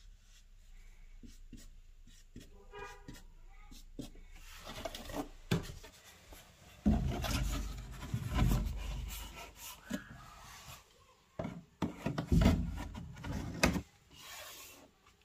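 Felt-tip marker squeaking and scratching across a laminate flooring plank, then the plank sliding and scraping over a chipboard floor as it is pushed into place around a pipe. The wooden rubbing comes in two louder stretches, with a few knocks.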